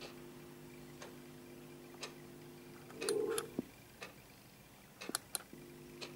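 Steady ticking about once a second over a low electrical-sounding hum of several steady tones. About halfway through, a louder short burst and a few sharp clicks come as the hum cuts out; the hum returns near the end.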